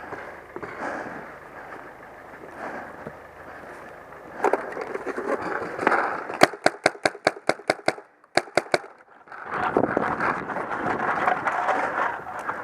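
Paintball marker firing a rapid string of about ten shots in a second and a half, then three more quick shots. Scuffing and rustling of a player moving through brush comes before and after the shots.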